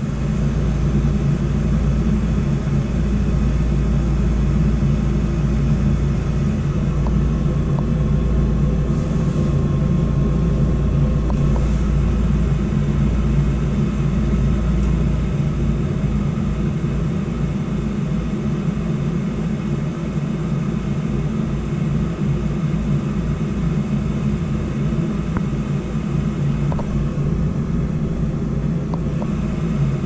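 Goodman gas furnace running: a steady low rumble of burners and fans.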